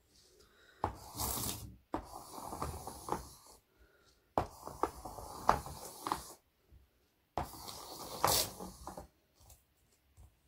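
Graphite pencil scraping across a large sheet of paper in four long scratchy strokes of one to two seconds each, with a few sharp taps as the pencil point strikes the paper.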